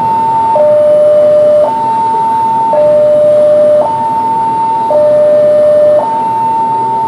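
Two-tone electronic warning siren, switching back and forth between a high and a low tone, each held about a second; the high tone is the louder.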